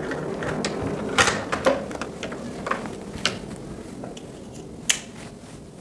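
Scattered clicks and knocks from handling a plastic plug, its wires and a small plastic device, with louder knocks about a second in and near five seconds.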